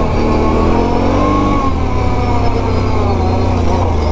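Can-Am Renegade 1000 ATV's Rotax V-twin engine running while the quad is ridden along a dirt trail. Its pitch rises and falls gently as the throttle changes.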